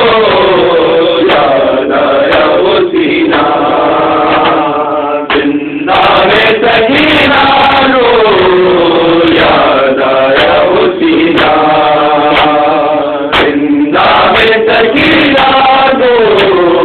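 Men chanting a noha, a Shia lament: a lead voice at the microphone, other men joining in, with no instruments. It is loud, with long drawn-out lines and short pauses between phrases about five and thirteen seconds in.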